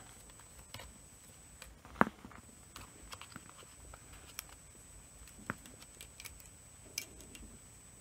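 Scattered light clicks and taps of a tool prying at the plastic back cover of a Sony RMT2100 remote control, with one sharper snap about two seconds in.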